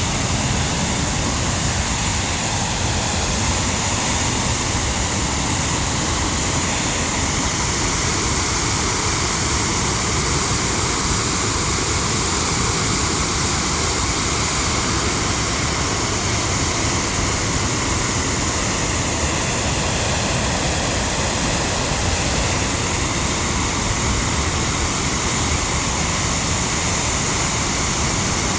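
Floodwater rushing in a steady, unbroken flow.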